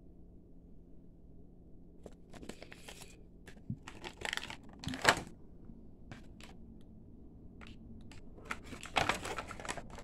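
Clear plastic blister packaging of a toy action figure crinkling and crackling as it is handled, in irregular rustles that start about two seconds in, with louder crackles about halfway through and near the end.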